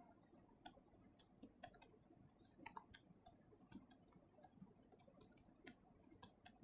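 Near silence, broken by faint, irregular small clicks and taps, a few every second.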